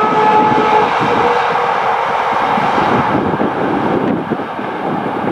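Container freight train's wagons rolling over the rails and fading as the train moves away, with wind buffeting the microphone. A thin steady whine of a few tones rings over the rumble during the first second.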